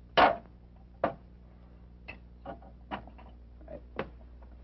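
A short loud knock just after the start, then a sharp click about a second in, followed by a run of fainter, irregularly spaced clicks and knocks over a low steady hum.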